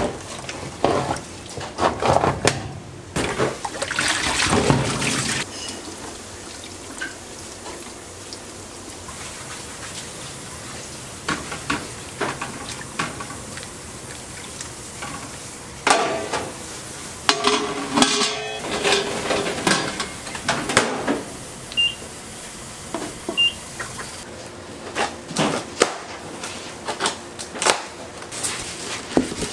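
Rice being washed in a mesh cloth bag: tap water running and splashing into a plastic basin, then hands sloshing and kneading the bag in a steel pot of water, with clanks of the steel pot. Near the end, short scrapes and clicks as the plastic wrap on a styrofoam box is worked open.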